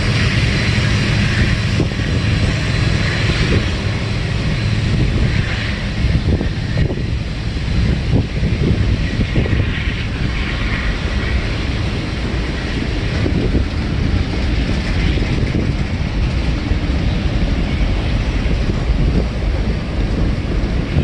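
Freight train rolling past: a steady rumble of steel wheels on rail, with repeated clicks and knocks from the rail joints.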